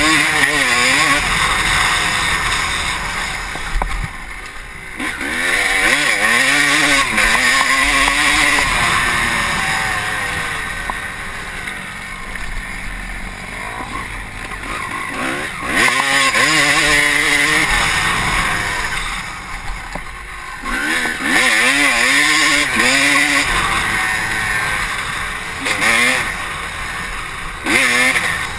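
Honda CR250 two-stroke motocross bike's engine revving hard and backing off again and again as it is ridden around a dirt track, its pitch climbing and falling with the throttle, with quieter off-throttle stretches. It is heard close up from the rider's helmet.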